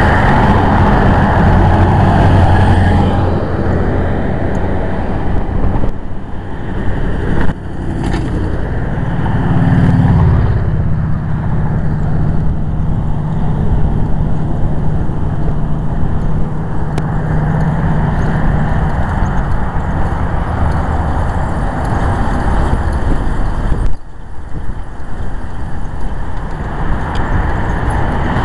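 A motor vehicle running, with a low engine hum under steady road noise; the engine note shifts about ten seconds in. Two sharp knocks, about seven seconds in and again about twenty-four seconds in.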